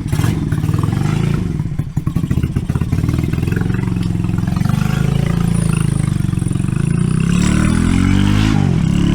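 RPS Racer 140 pit bike's single-cylinder engine running cold on choke through a stainless side-exit exhaust, uneven and clattery at first. Near the end the revs rise, dip briefly and climb again as it accelerates.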